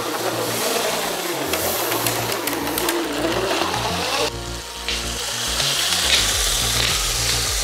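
Battery-powered Lego train motor whirring, its wheels rattling on plastic Lego track, the whine wavering in pitch as the train runs down a ramp. About four seconds in the sound turns hissier and rattlier as the train runs on flat track.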